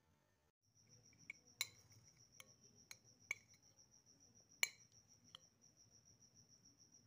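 A metal spoon clinking and scraping against a plate of macaroni: about seven light clicks, the loudest about one and a half and four and a half seconds in. A faint, steady, high-pitched pulsing tone runs behind from about half a second in.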